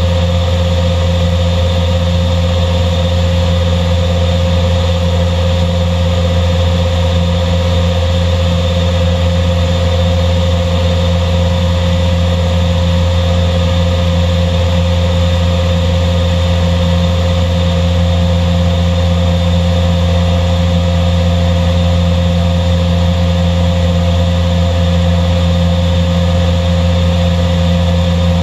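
WARSM-DP5000L computer panel saw running, a steady hum with a strong low drone and a held higher whine that does not change.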